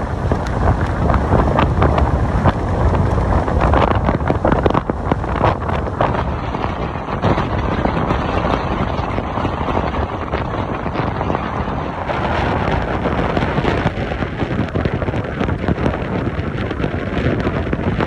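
Strong gusty wind buffeting the microphone: a loud, continuous rumble with rapid gusts.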